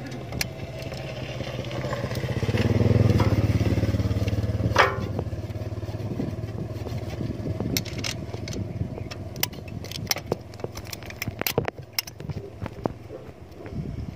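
A motorcycle engine running, growing louder to a peak about three seconds in and then fading away. Many small metallic clicks and taps follow, from hand tools working on the stopped engine's valve adjusters.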